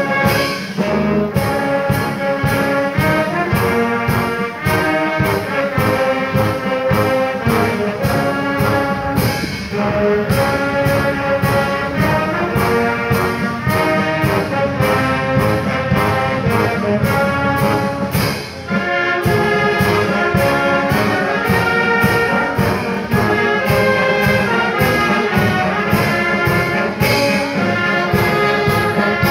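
Brass band of trumpets and trombones playing a tune with a steady beat, with a short break in the phrase about two-thirds of the way through.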